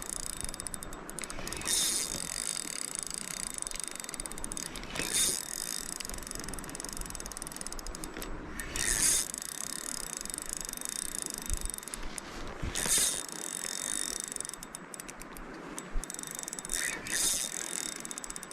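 Fishing reel being cranked to wind in line on a hooked fish, its gears clicking and whirring in a rapid ratchet-like patter. The sound swells louder every few seconds.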